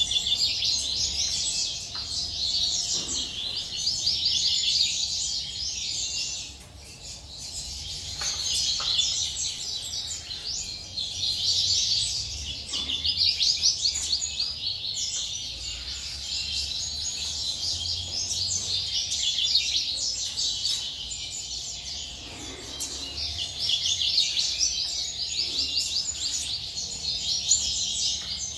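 Many small cage birds chirping together: a dense, unbroken chatter of quick high chirps, thinning briefly about seven seconds in.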